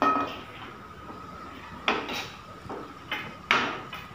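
Steel ladle scraping and knocking against a metal kadai (cheenachatti) while roasted grated coconut and spice powder are stirred. A sharp knock at the start, then more clinks about two seconds in and again past three seconds.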